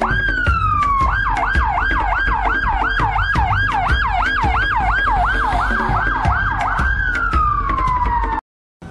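Ambulance siren: a slow falling wail switches to a fast yelp cycling about two and a half times a second, then returns to a slow falling wail that cuts off abruptly near the end.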